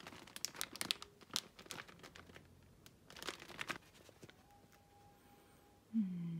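Plastic food bag of glutinous rice crinkling as it is handled, in two crackly bursts. Near the end comes a short low tone that dips in pitch and then holds.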